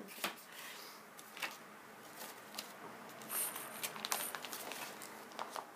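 Paper and card rustling and crinkling as hands handle and unfold a folded paper Christmas countdown, with scattered light taps and a brief high crinkle about three and a half seconds in.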